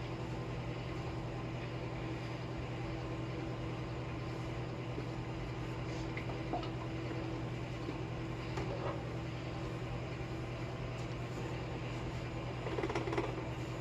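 A steady low mechanical hum with a few faint clicks and knocks, and a brief louder clatter near the end.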